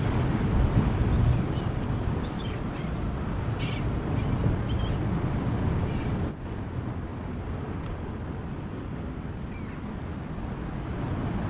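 Steady rumble of wind and sea surf, with a bird's short, high chirps repeating through the first five seconds and once more near the end.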